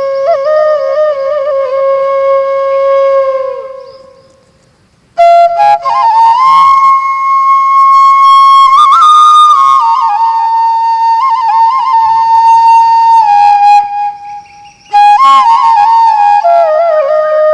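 Flute melody of long held notes decorated with quick trills and turns. It fades out about four seconds in and starts again a second later, with another short break about fifteen seconds in.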